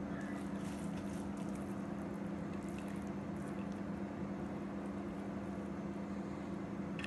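A steady low mechanical hum runs throughout, with faint soft scrapes of a plastic spatula scooping biryani rice from a pot onto a plate.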